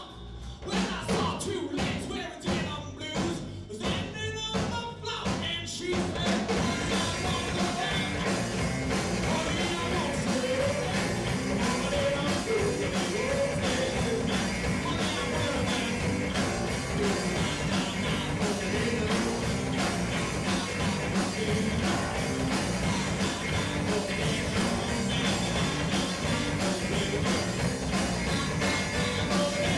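Live rock band playing a blues-rock number with acoustic guitar, electric bass, drums and a man singing. It opens with short separate band hits, and the full band comes in steadily about six seconds in.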